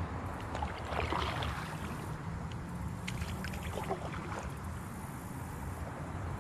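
Water sloshing and lapping around a kayak hull, with a few short light splashes or knocks about a second in and again around three to four seconds in, over a steady low rumble.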